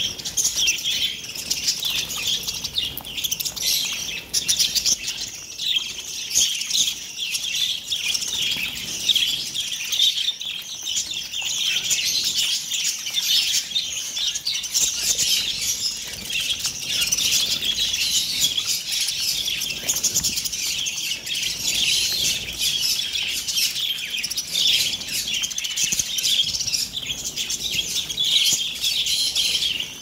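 A large flock of budgerigars chattering and chirping continuously in a dense, high-pitched twitter, with wings fluttering now and then as birds flit about.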